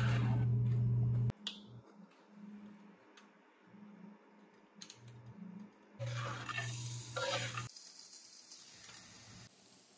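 Kitchen tap water running into a sink, with a few small clicks. A steady low hum comes in near the start and again about six seconds in, stopping abruptly each time.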